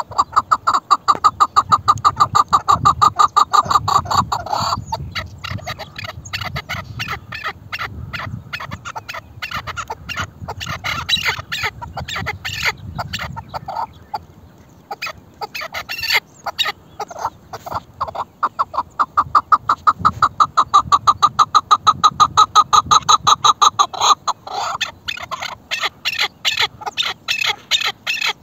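Chukar partridges calling: fast runs of repeated chuck notes, loud in a bout that stops about four seconds in and again from about twenty seconds in, with softer calling between.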